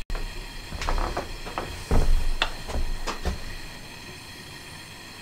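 Propane camp-stove burner hissing steadily under an aluminium coffee pot. A handful of knocks and clinks come between about one and three seconds in, the loudest near two seconds.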